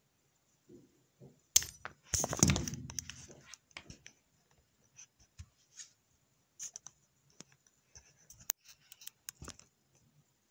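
Metal clicks and clatter from handling and working folding trauma shears: a sharp click about a second and a half in, a louder clatter just after, then scattered light clicks.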